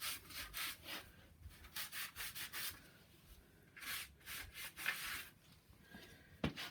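Damp cloth wiping excess wood glue off the joints of a wooden frame, in runs of quick back-and-forth strokes with short pauses, and a light knock near the end.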